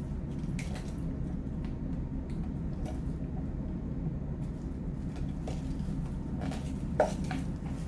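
Small clicks and taps of a small plastic-and-metal part being handled and worked apart by hand, with one sharper click about seven seconds in, over a steady low hum.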